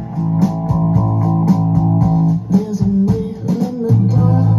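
Guitar music with a bass line and a steady beat, played through a Dynaco PAT-4 preamplifier and Stereo 120A power amplifier on test.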